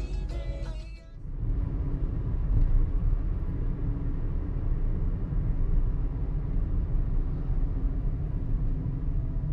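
A car driving on a paved road: a steady low rumble of tyres and engine with a faint hum. Music with singing cuts off abruptly about a second in.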